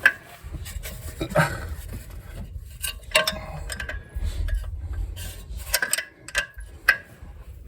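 Wrenches and sockets clinking and scraping against the fan and water pump bolts of a 1987 GMC S15, with scattered sharp metallic clicks and knocks as the stuck bolts are worked at.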